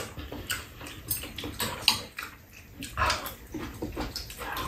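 Eating sounds: ramen noodles slurped and chewed in irregular short bursts, with chopsticks clicking against the bowls now and then.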